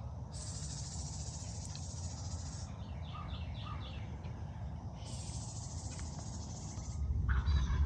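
An insect trills in two long, high, steady runs of a couple of seconds each, with a short series of bird chirps between them. Under this there is a low rumble of wind or handling that gets louder near the end.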